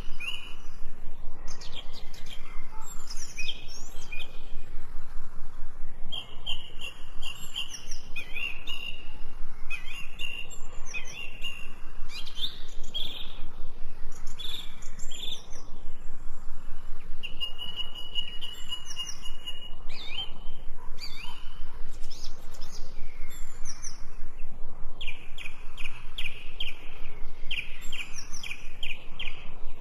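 Several small songbirds chirping and calling in overlapping bursts, with rapid high trills repeating several times a second.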